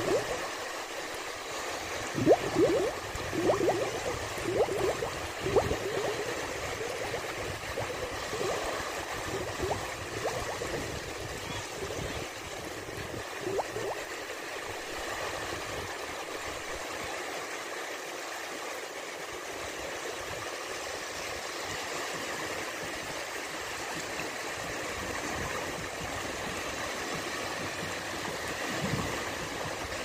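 Small sea waves lapping and sloshing in shallow water at the shoreline, with several splashy laps in the first few seconds settling into a steady wash.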